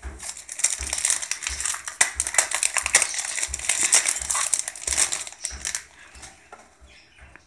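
Foil wrapper of a Pokémon trading-card booster pack crinkling and crackling as it is handled and torn open, dying down about six seconds in.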